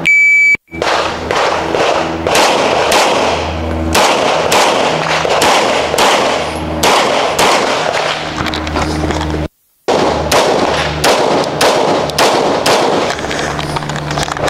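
A shot timer's start beep, then rapid pistol fire: dozens of shots in quick strings with short pauses between them. The sound cuts out for a moment about two-thirds of the way through.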